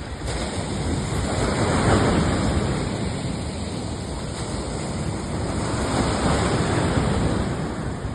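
Rushing noise of surf and wind with wind buffeting the microphone, swelling about two seconds in and again around six seconds in.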